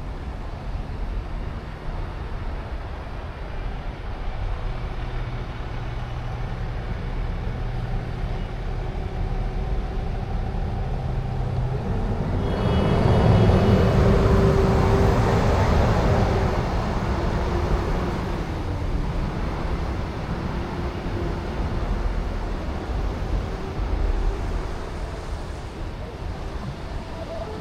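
City street traffic rumbling steadily, with a heavy vehicle such as a bus or truck passing loudly about halfway through, then fading away.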